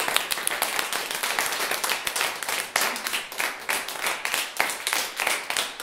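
Many hands clapping in a dense, irregular patter, like a crowd applauding, with faint voices now and then.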